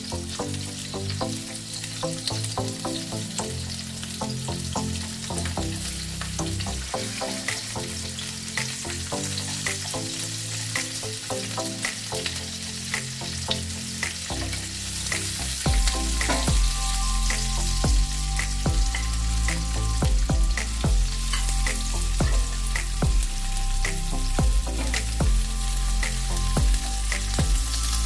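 Food sizzling in oil in a frying pan, with the clicks and scrapes of a utensil stirring it.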